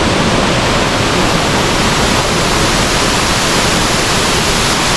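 Waterfall crashing into its plunge pool at close range, a loud, steady rush of falling water.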